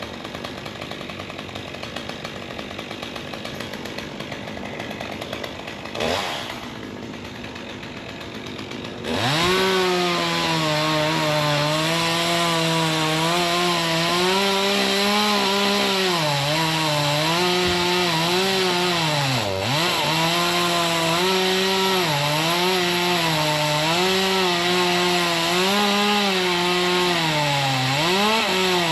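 Chainsaw running at low revs, then opened up to full throttle about nine seconds in and cutting wood. Its steady high engine note sags and recovers again and again as the chain takes load, with one deep dip in the middle.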